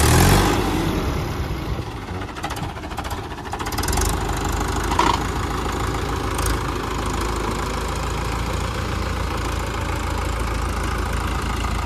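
Mahindra 585 tractor's diesel engine running steadily, louder for a moment right at the start.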